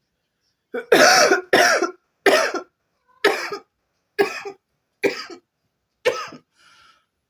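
A woman coughing from inhaling cannabis smoke: about seven harsh coughs a little under a second apart, the first two the loudest, tailing off to a faint one near the end.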